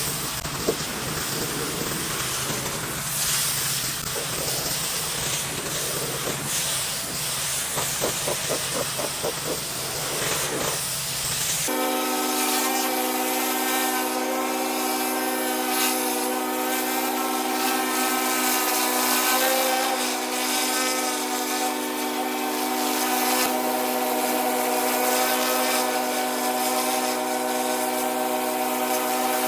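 Pressure washer spray hissing against concrete. After an abrupt cut about twelve seconds in, a steady machine drone holds one even pitch.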